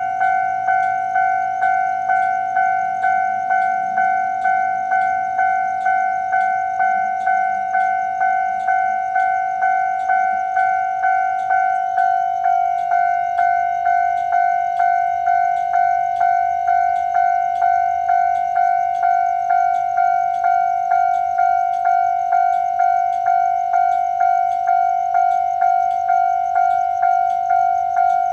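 Railway level-crossing warning bell ringing steadily and evenly, about three dings every two seconds, signalling that a train is approaching the crossing.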